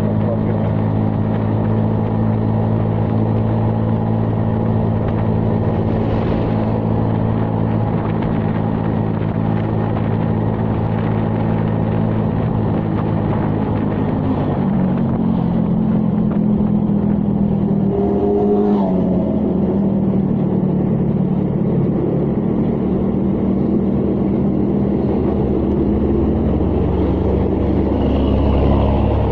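A vehicle's engine and road noise, heard from inside while driving: a steady low drone that changes pitch about halfway through. A deeper rumble builds near the end.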